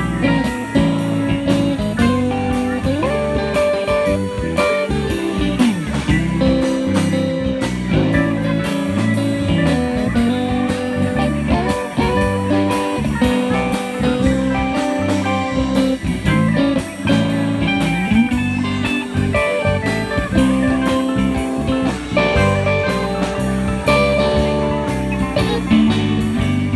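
Live band playing on electric guitars, electric bass, drum kit and keyboard, with a steady drum beat under the guitar lines.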